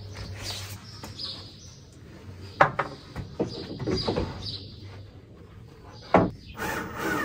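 A wooden shelf board knocking against the timber van racking as it is lifted and fitted: two sharp knocks and a few lighter ones in between, with birds chirping in the background.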